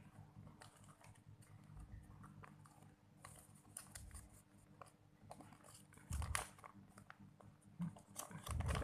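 Vape kit packaging and paper inserts being handled: soft rustling and small clicks, with two heavier bumps about six seconds in and near the end.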